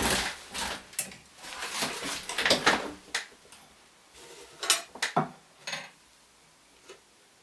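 Pliers and thin wire being handled at a wooden jeweller's bench: rustling with scattered sharp clicks and knocks of metal tools on wood. Busy for the first three seconds, then only a few separate clicks.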